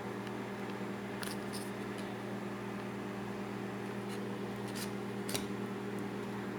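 A steady low hum, with a few faint clicks and soft handling noises as tomato sauce is emptied from its packet into the bowl.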